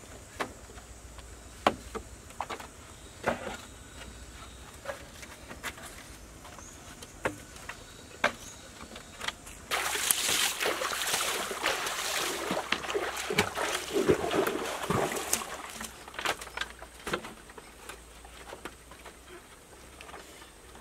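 Green bamboo poles knocking and clacking now and then as the bamboo boat frame is handled. About ten seconds in, water splashes for around six seconds as river water is thrown by hand onto the bamboo, and then the scattered knocks come back.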